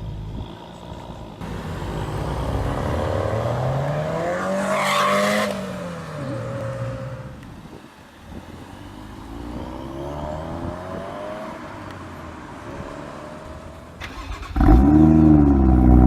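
Sports car engine accelerating, its note climbing and then falling away over a few seconds, followed by a second, quieter rise. Near the end a much louder engine note comes in suddenly and revs up and down close by.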